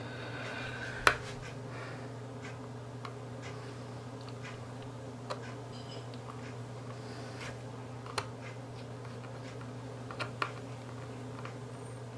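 A small screwdriver turning screws into the plastic case of a Sunvell T95k Pro Android TV box: scattered light clicks and ticks, with a sharper click about a second in, over a steady low hum.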